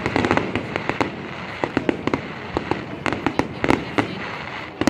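Fireworks going off: an irregular string of sharp bangs and crackles over a continuous hiss of further distant bursts.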